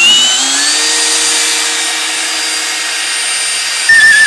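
Cordless brushless hammer drill driving a large lag bolt into wood. The motor whine rises as it spins up and then runs steadily under load. About four seconds in it gets louder, with a wavering high squeal.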